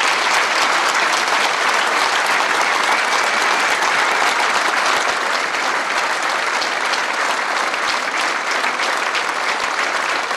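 A large crowd of standing people applauding steadily, a dense patter of many hands clapping.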